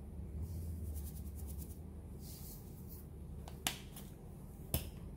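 Quiet room tone with a steady low hum, broken by two short sharp clicks about a second apart in the second half.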